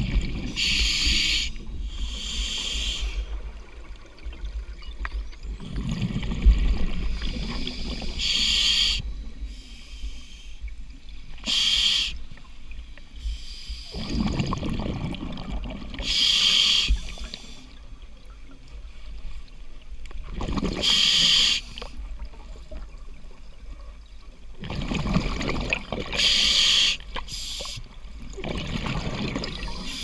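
Scuba diver breathing through a regulator underwater: a hiss from each inhalation alternating with bursts of exhaled bubbles, repeating every few seconds.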